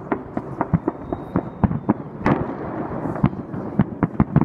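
Aerial fireworks bursting: a rapid, irregular string of sharp reports and crackles, several a second, with one louder bang about two seconds in followed by a rolling echo.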